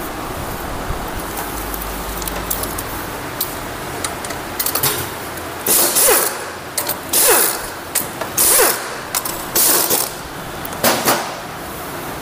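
A wrench undoing the cylinder head bolts of a Hero Passion Pro BS6 engine. It works in short rasping bursts about once a second through the second half, some with a faint falling squeak as a bolt turns.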